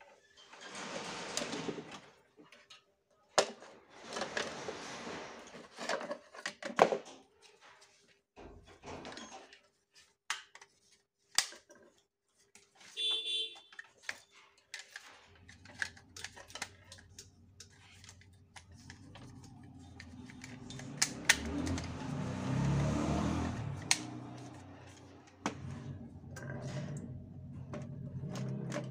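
Plastic clicks, knocks and rustling as a modular switchboard's white front cover plate is handled and pressed onto the board, with a low rumble building in the second half.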